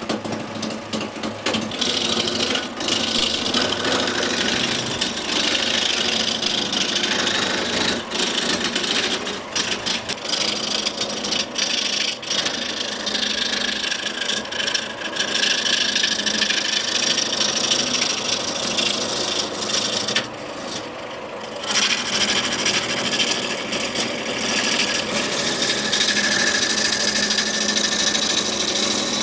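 Turning tool cutting a spinning boxwood blank on a belt-driven wood lathe: a continuous rasping cut as shavings peel off, with a brief break about 20 seconds in.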